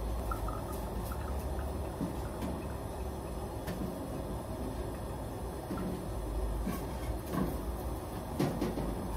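Kitchen handling sounds: a few light clicks and knocks of cookware and utensils over a steady low rumble, the loudest knocks coming in the last two seconds.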